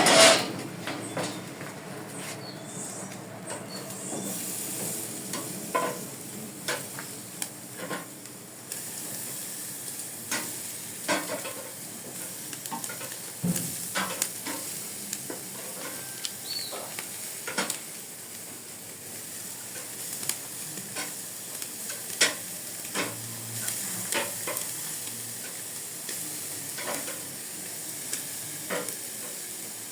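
Food sizzling on a grill, a steady hiss with scattered clicks and knocks of utensils against metal, and a louder knock at the very start.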